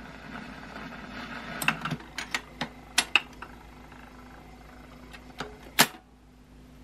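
Automatic record player's tone-arm return mechanism cycling after a 78 rpm record ends: a string of mechanical clicks and clacks over a low motor hum as the arm lifts off the record and swings back. A louder clack comes near the end as the arm drops onto its rest, and then the running noise falls away.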